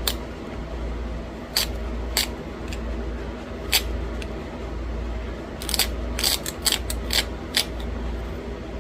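Scattered sharp clicks and taps of small stone pieces against stone and knapping tools, a quick cluster of them about six seconds in, over a steady low hum.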